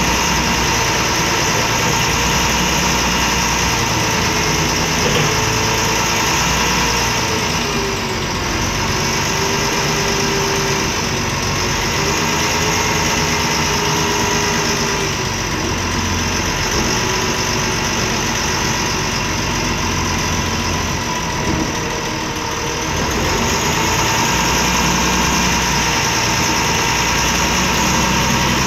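MAN Lion's Classic city bus's D0826 LOH six-cylinder turbodiesel running steadily at idle, heard from inside the passenger cabin; a loud, noisy diesel.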